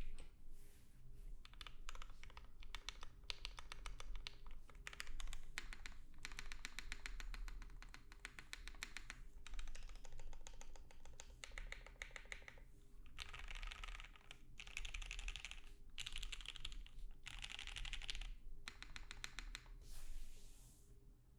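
Typing on a Kyuu 65% aluminium-plate mechanical keyboard with lubed, filmed Gateron Ink v2 linear switches and CRP APL keycaps: fast runs of keystroke clacks broken by short pauses.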